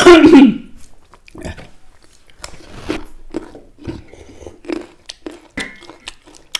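A man coughs loudly once, as if food has caught in his throat, then close-up eating sounds: chewing and lip-smacking of dhido and chicken, with short soft clicks through to the end.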